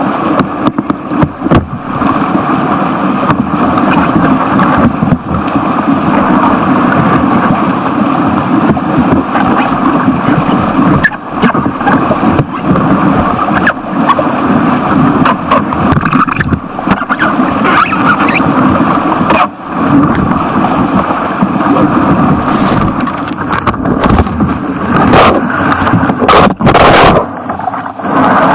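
Small stream rapids rushing and splashing close to the microphone, a loud steady wash of whitewater. Near the end come several sharp knocks and rustles as the camera is handled.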